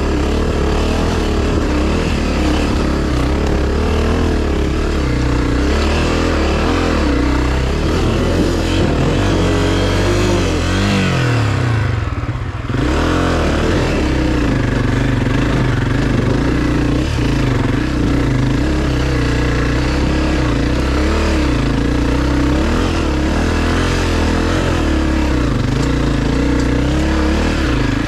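Honda dirt bike's single-cylinder four-stroke engine revving hard and labouring up a steep, rough dirt climb, with the revs rising and falling on the throttle. About eleven seconds in the revs drop away briefly, then pick up again.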